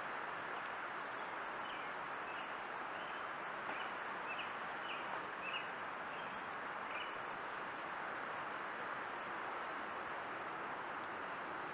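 Steady hiss of a Browning trail camera's built-in microphone, with a faint high electronic whine. Between about a second and a half and seven seconds in, a string of about nine short, high chirps sounds faintly over it.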